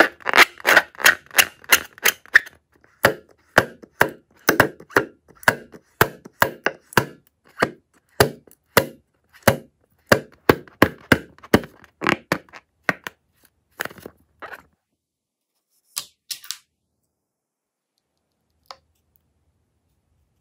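Rubber balloon being squeezed and handled by fingers, giving a run of sharp crackling taps, about two or three a second, that thins out to a few last clicks after about fourteen seconds.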